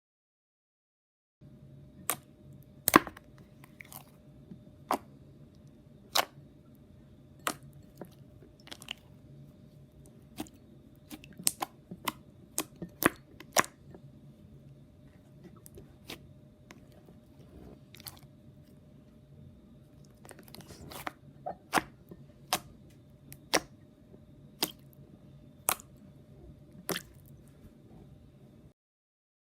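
Slime being pressed and stretched by hand, giving sharp, irregular crackling pops roughly one or two a second over a faint steady hum.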